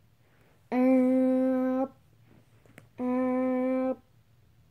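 A voice humming two long, steady notes, each lasting about a second, with a short pause between them.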